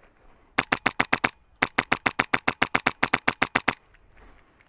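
Airsoft rifle firing two rapid bursts of evenly spaced shots, about ten a second: a short burst of about seven shots, then after a brief pause a longer burst of about twenty.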